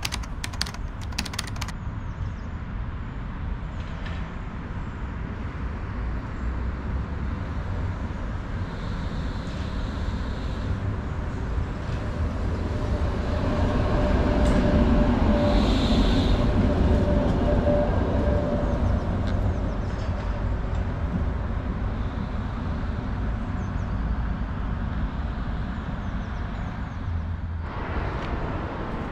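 Tram approaching on the track and passing close by. The rumble of its wheels on the rails grows louder to a peak about halfway through, with a steady whine and a brief high squeal as it passes, then fades away.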